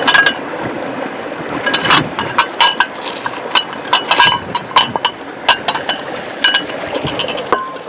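A river rushing steadily, with a quick run of sharp clinks that ring briefly at the same few pitches, like metal or hard objects knocking together.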